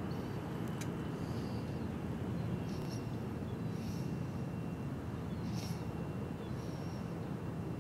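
Steady low rumble of harbour background noise, with small birds giving short high chirps about every second.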